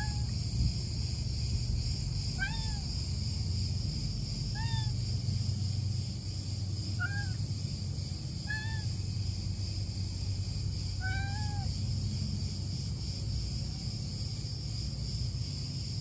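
A cat meowing again and again: about six short meows a couple of seconds apart, each rising and then falling in pitch, stopping about two-thirds of the way through.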